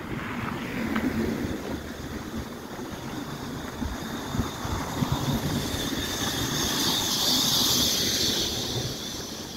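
Car traffic passing on a road: tyre and engine noise from passing cars, with a high hiss that swells about seven seconds in and fades before the end.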